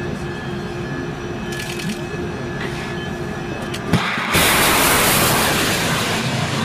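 Evolved Sea Sparrow Missile launching from a shipboard vertical launch cell. About four seconds in comes a sharp crack, then the loud rushing roar of the rocket motor, which slowly fades as the missile climbs away. Before the launch there is only steady background noise.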